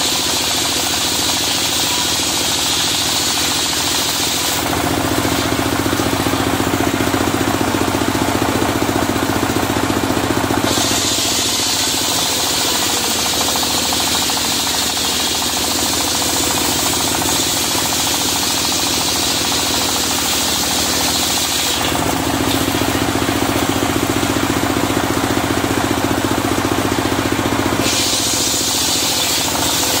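Portable engine-driven circular sawmill running steadily, ripping a red sengon log into boards: a sawing hiss over the engine's drone. Twice, for about six seconds each, the hiss drops away and a lower hum comes up.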